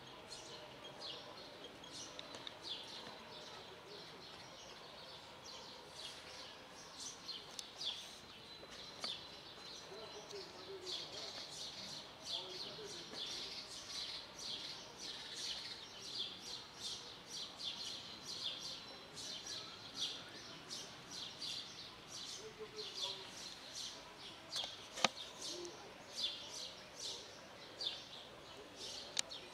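Small birds chirping outdoors: a dense run of short, high chirps, with one sharp click late on.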